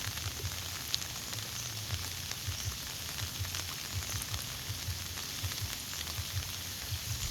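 Heavy rain falling: a steady hiss with scattered sharp drop ticks and irregular low thumps underneath.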